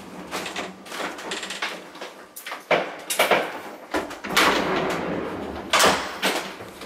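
Wooden door of a 1929 funicular car being unlatched and opened by hand, with a series of clacks and knocks.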